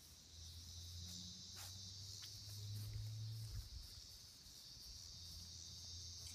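Faint, steady, high-pitched chorus of insects, with a low hum underneath.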